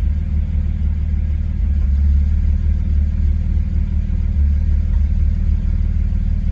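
BMW Z4 E89 35i twin-turbo straight-six idling unevenly shortly after a cold start. The rough, unsteady idle is the sign of a cold-start misfire, rough enough to rock the car.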